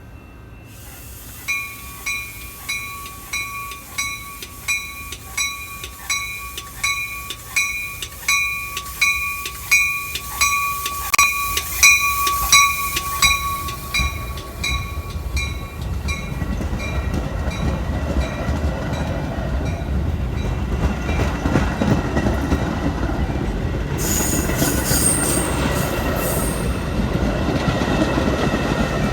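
A railroad crossing warning bell dings about one and a half times a second, then stops about halfway through. A Metra train's rumble builds as it comes in, with a brief high squeal near the end.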